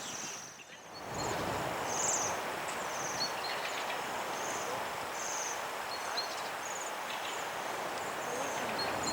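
Waterfall rushing with a steady noise of falling water, briefly quieter just before a second in, with a small bird chirping repeatedly high over it.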